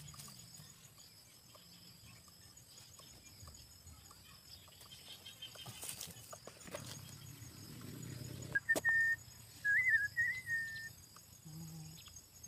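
Faint rustling and a few light clicks as hands work a wire snare and cord on dry leaf litter. About eight and a half seconds in comes a short, high whistle of about two seconds that holds one note, wavers briefly, then settles again.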